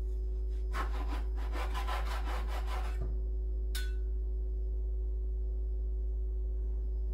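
A cleaver sawing back and forth through a baked chicken on a wooden cutting board, in quick strokes about five a second for two seconds or so, then stopping. A single light clink comes about four seconds in, over a steady low hum.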